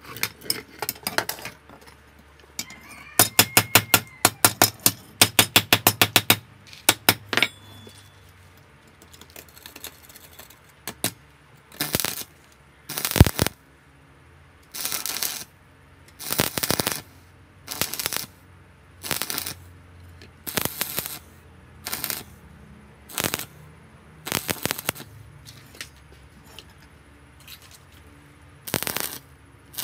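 A hammer rapidly striking an iron rod against a wooden block, in quick runs of blows. About a dozen short bursts of stick-welding arc crackle follow, each under a second, as the rod is tack-welded.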